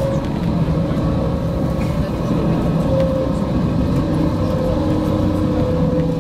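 A tram in motion, heard from inside: a steady low rumble of the running gear on the rails with a steady whine held at one pitch above it.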